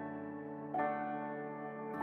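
Background music: soft ambient instrumental with held chords, a new chord coming in about three-quarters of a second in and again near the end.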